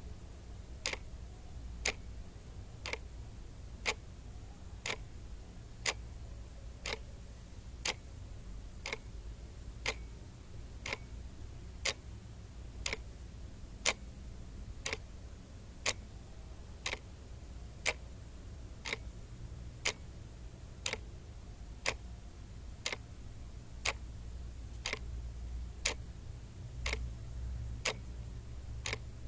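Clock ticking steadily, one sharp tick about every second, over a low steady hum.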